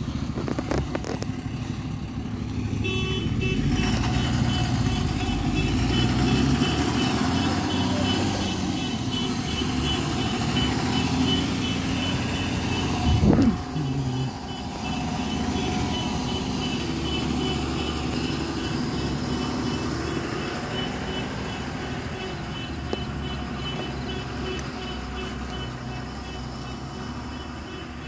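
Truck engine running steadily, with a run of evenly spaced high beeps over it. About halfway through there is one brief, loud sound that falls in pitch.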